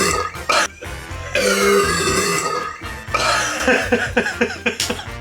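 Loud, drawn-out burps of carbonated-drink gas after a bottle of Sprite is gulped down, the longest starting about a second and a half in; gas that was being held back is forced up. Background music plays underneath.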